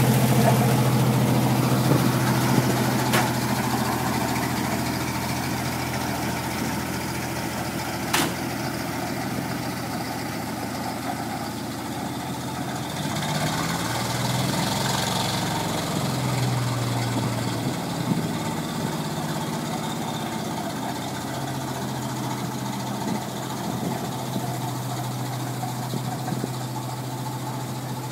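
A 1964 American LaFrance fire truck's 600 cubic inch Continental six-cylinder gasoline engine idling steadily, growing quieter over the first several seconds. There is a sharp click about three seconds in and another about eight seconds in.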